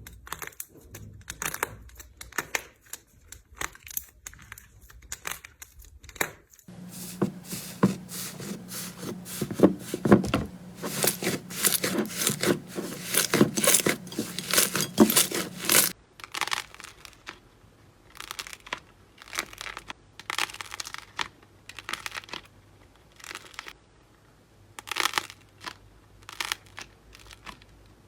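Slime being squeezed, poked and pressed by hand, giving crackling, crinkling and crunching sounds. The clips change about six seconds in and again a little past halfway, with a low steady hum under the middle part and sparser crunches separated by short pauses in the last part.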